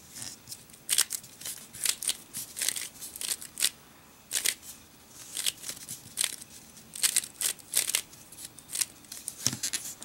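Rubik's Cube faces being turned quickly by hand: a run of sharp plastic clicks and swishes in uneven bursts, with a couple of short pauses.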